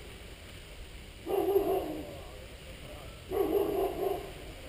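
A dog barking twice, about two seconds apart, each bark somewhat drawn out.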